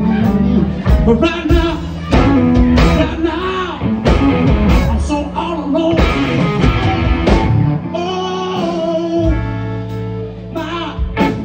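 Live blues band: a semi-hollow electric guitar played through an amplifier, with vocals, over bass and drums.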